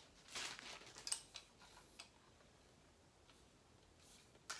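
Faint handling noises from a ring light and its stand being fitted together: a light rustle and a few small clicks in the first two seconds, then near quiet, with a sharper click near the end.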